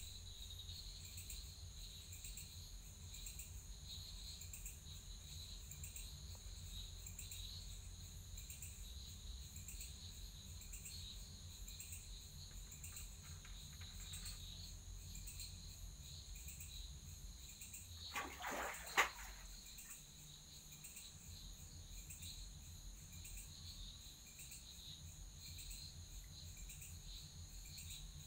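Faint, steady chirping of crickets, an even run of high pulses over a low hum. About eighteen seconds in there is a brief clatter, the loudest sound.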